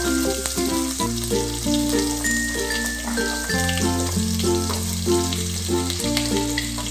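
Instrumental background music, its bass note changing about every two and a half seconds, with the sizzle of pumpkin skin pieces and curry leaves frying in a steel pan beneath it.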